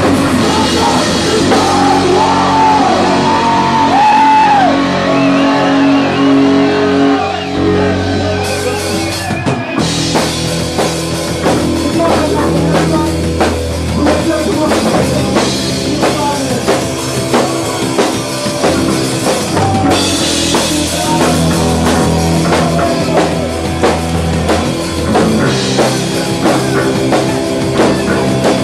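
Punk rock band playing live and loud, with drums, electric guitar and a singer. The song breaks briefly about ten seconds in, then goes on over a steady, driving drum beat.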